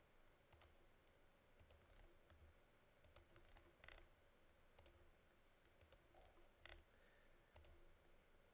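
Faint computer mouse clicks at irregular intervals over near-silent room tone, two a little louder than the rest.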